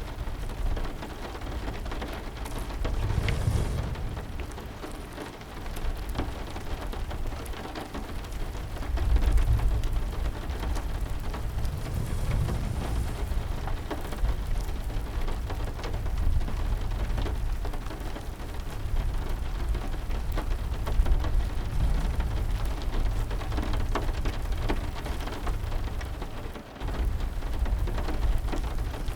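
Steady heavy rain with scattered sharp drop ticks, under low rolling thunder that swells and fades several times.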